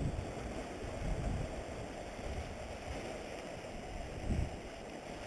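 Wind buffeting the camera microphone in uneven low rumbles, with a stronger gust about four seconds in, over a steady hiss of sea washing against the rocky shore.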